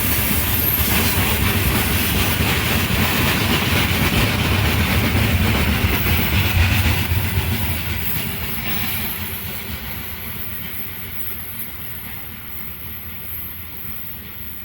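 Freight train rolling past, its wagon wheels clattering over the rails, then fading away from about halfway through as the train moves off.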